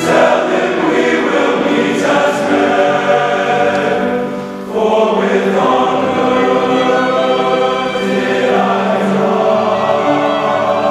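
High school men's choir singing sustained, held chords, with a brief pause for breath about four and a half seconds in before the next phrase begins.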